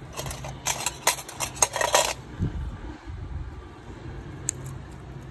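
Metal pedicure instruments clinking and rattling against a stainless steel tray, a quick run of sharp clicks lasting about two seconds, with one faint click near the end, over a steady low hum.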